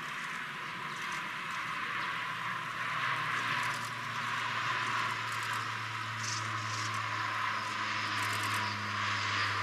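ShinMaywa US-2 flying boat passing overhead, its four turboprop engines and propellers droning. A low hum grows stronger about three seconds in over a steady hiss.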